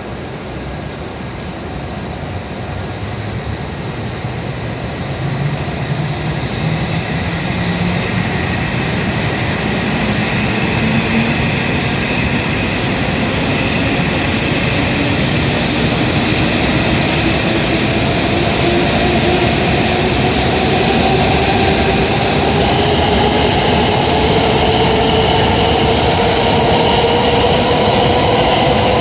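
E7 series Shinkansen train pulling away and accelerating. Its motor whine climbs steadily in pitch over a rumble that grows louder.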